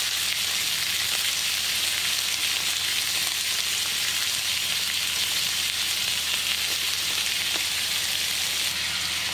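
Beef steak searing in a preheated cast-iron skillet: a steady, even sizzle from the freshly laid raw meat frying on the very hot pan.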